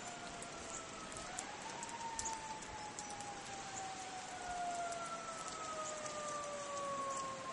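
Faint siren wailing: its pitch rises quickly about a second in, then falls slowly over several seconds, and begins to rise again near the end.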